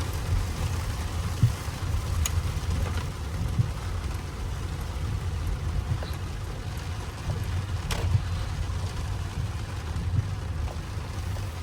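Steady low rumble of a Mercedes S580 driving, heard from inside the cabin in heavy rain, with a few sharp ticks, one about two seconds in and another about eight seconds in.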